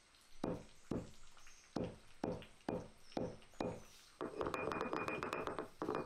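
A heavy stone roller pounding dry ginger and cardamom pods on a stone grinding slab: about seven sharp stone-on-stone knocks, roughly two a second. About four seconds in the roller is rolled back and forth across the slab, a continuous gritty grinding.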